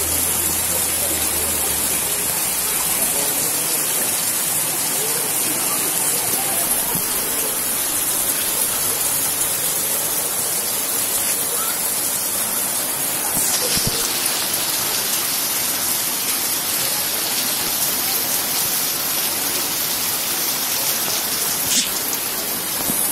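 Steady hiss of rain and floodwater running over a road, even and unbroken.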